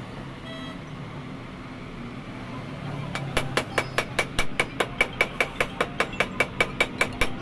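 A small hammer tapping rapidly on the metal top of a Maruti Suzuki Ertiga shock absorber held in a bench vise during its repair. The sharp, ringing strikes come about five a second, starting about three seconds in, over a low steady hum.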